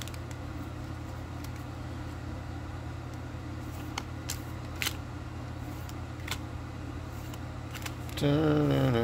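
Pokémon trading cards being handled and slid through by hand: a few soft clicks and flicks over a steady low hum. Near the end a voice starts up, humming or talking.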